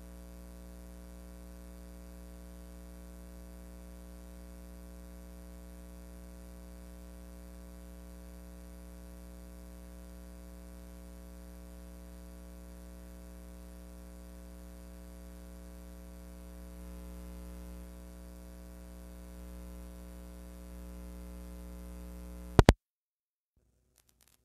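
Steady electrical hum and buzz made of several held tones, with a single sharp, loud pop near the end, after which the sound cuts off to dead silence.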